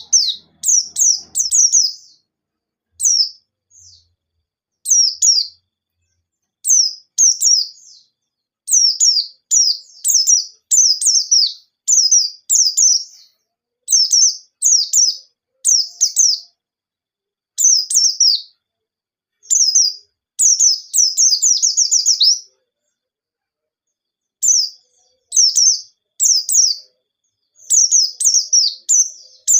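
White-eye (pleci) singing loudly: short, high, downward-sliding chirps in quick clusters with short pauses between, including a fast run of notes about two-thirds of the way through.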